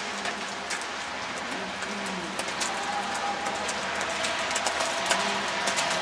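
Steady rain: a constant hiss with many sharp drop ticks, denser in the second half, with faint voices in the background.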